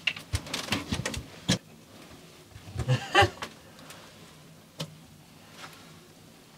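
Handling noises in a steel ice hut: a rapid run of small clicks and knocks with clothing rustle as a caught perch and fishing line are handled, then a louder short burst about three seconds in and a single click shortly before five seconds.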